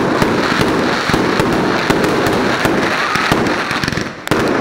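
Fireworks display: a dense run of bangs and crackling from bursting shells and ground fountains. There is a short lull about four seconds in, then a fresh sharp bang.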